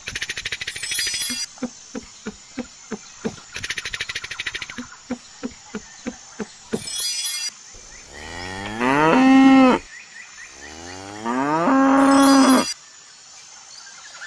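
Two long cow moos, each rising in pitch and then held, the first about eight seconds in and the second about three seconds later. Before them, a run of soft, evenly spaced ticks, about three a second, with two short buzzing trills.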